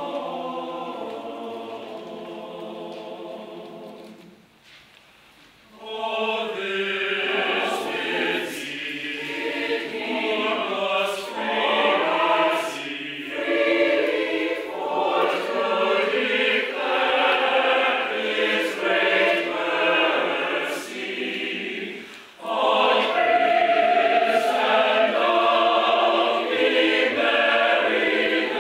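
Church choir singing a Christmas carol in a virtual mix of separately recorded voices. A held chord dies away about four seconds in. After a short pause the choir starts a new phrase, with another brief break about three-quarters of the way through.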